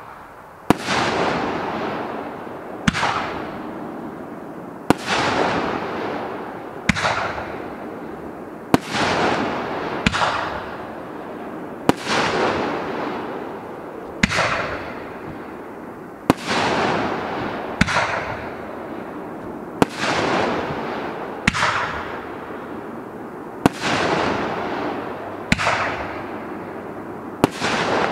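Mad Jester 3-inch nine-shot fireworks cake firing shot after shot. There is a sharp bang about every two seconds, each followed by a long, fading hiss from the gold crown brocade breaks.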